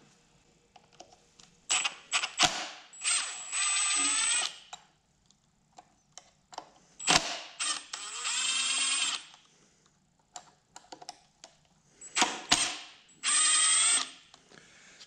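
Milwaukee cordless power driver whirring in three short runs as it backs out the three screws holding the air cleaner base, with short clicks and knocks between runs.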